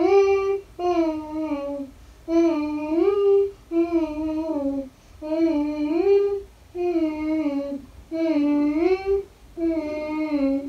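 A young girl singing a wordless tune in about seven short phrases, each about a second long with brief pauses between, the pitch sliding up and down within each phrase.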